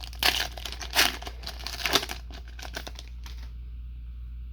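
A Garbage Pail Kids trading-card pack wrapper being torn open and crinkled, in loud crackling spurts that stop about three and a half seconds in.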